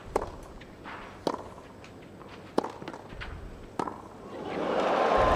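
Tennis ball struck by rackets in a rally on clay, four sharp hits a little over a second apart. Near the end the crowd's noise swells into cheering and applause.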